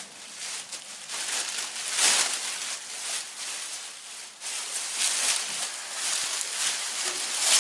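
Bubble-wrap bag crinkling and rustling as an artificial Christmas tree section is pulled out of it, an irregular crackly noise with louder surges about two seconds in and near the end.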